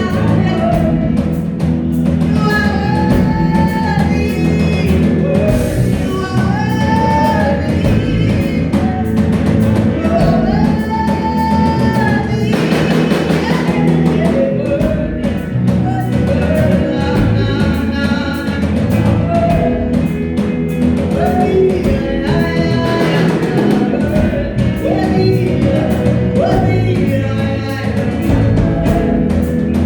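Live worship music: a band playing steadily under singing, with short sung phrases recurring every few seconds.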